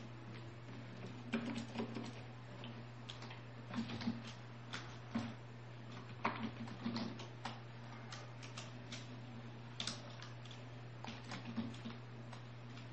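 Computer keyboard keys clicking in irregular runs of quick keystrokes as code is typed, over a steady low hum.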